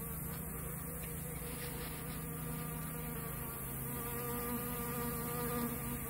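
Honey bees buzzing as they fly in and out of a hive entrance, a steady hum.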